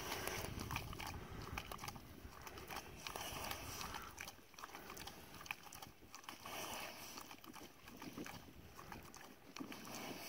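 A pig eating dry meal from a rubber feed pan: irregular chewing and munching with many small clicks.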